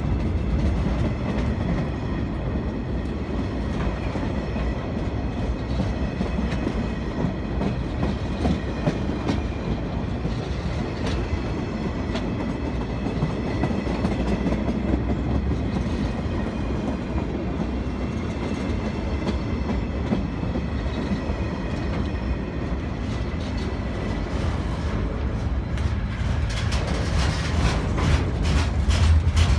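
A train rolling past at close range, its wagons' wheels clicking rhythmically over the rail joints over a steady rumble. It grows louder and brighter near the end.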